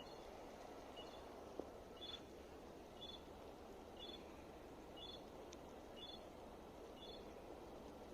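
A small bird's short, high chirp, repeated about once a second, faint over steady background noise.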